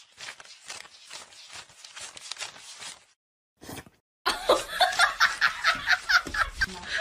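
A person laughing in quick repeated pulses, soft at first. The laughter drops out for about a second near the middle and comes back louder.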